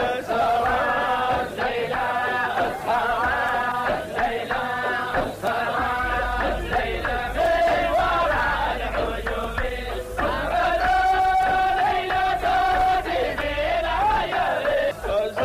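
Male chanting of a Sufi devotional song (inshad), melodic and unaccompanied by speech, with one long held note about ten seconds in.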